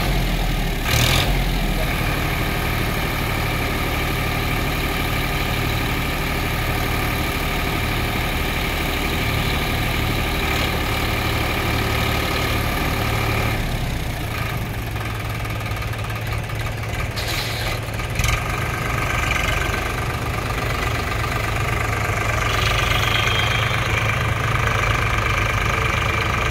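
Eicher 551 tractor's diesel engine running steadily while it works a hydraulic front loader, with a steady high whine over the engine note. A few short knocks come about a second in and again past the middle.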